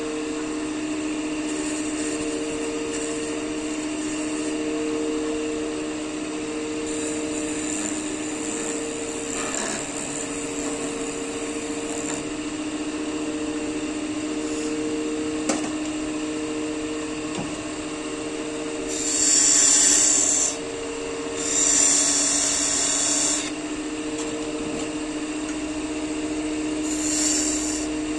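Wood lathe running with a steady hum, and a pulsing overtone, while a turning tool works the spinning wood. There are three louder bursts of hiss from the cut, about two-thirds of the way through and again near the end.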